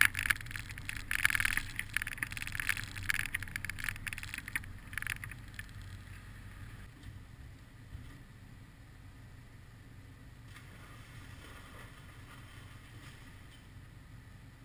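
A vehicle's engine running as it backs into a parking spot, with crackling noise over the first five seconds or so; about six seconds in it drops to a faint, steady low hum.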